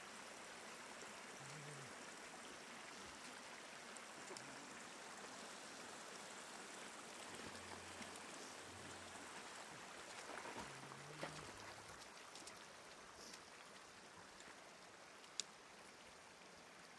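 Faint, steady trickle of shallow floodwater running over the ground, with a couple of short sharp knocks about eleven and fifteen seconds in.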